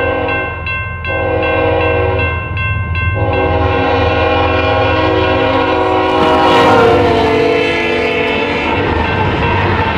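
Freight diesel locomotive's multi-chime air horn sounding for a grade crossing: two short breaks early on, then one long blast that drops in pitch as the locomotive passes close by about two-thirds through. The locomotive's engine and the rumble of the train follow it.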